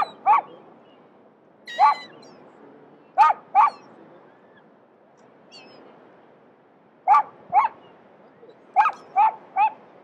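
Short, loud animal calls: two near the start, a single one about two seconds in, then two pairs, and three in quick succession near the end.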